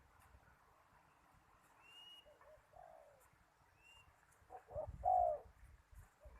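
Spotted dove cooing: a short coo about three seconds in, then a louder coo of several notes about five seconds in. A small bird's thin, high chirps come at about two and four seconds.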